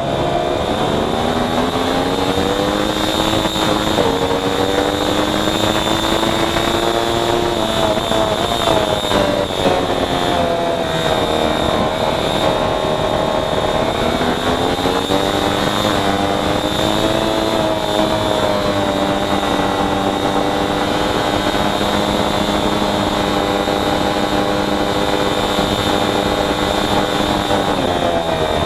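Racing motorcycle engine at race pace, its pitch rising hard through the gears and dropping back under braking and downshifts: dips near the start, about 8 seconds in and about 14 seconds in, each followed by a climb to high revs.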